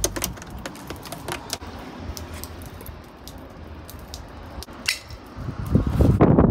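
Keys jingling and clicking as a key is turned in a switch mounted on a bicycle frame, with a few scattered light clicks and knocks. Near the end a low rumble rises.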